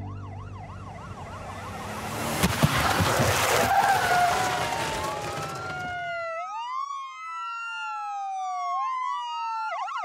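A car crash: two sharp bangs about two and a half seconds in, inside a few seconds of crunching, scraping noise, over a fading fast-warbling ambulance siren. The siren then runs alone as a slow wail rising and falling in pitch, and switches back to the fast warble at the end.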